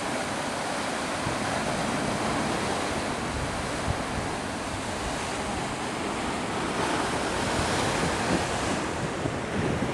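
Sea surf breaking and washing around rocks at the foot of a cliff: a steady rushing that swells a little about seven seconds in, with some wind on the microphone.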